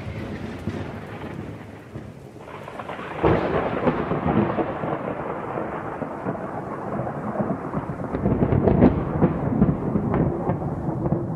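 Rolling thunder sound effect: the rumble dies down after a crack, then a second roll swells about three seconds in and rumbles on with crackles.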